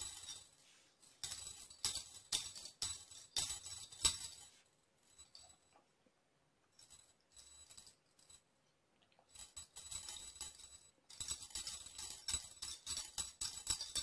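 Little bell inside a small cat toy ball jingling as it is shaken and rolled by hand, in several bursts of a few seconds with short pauses between.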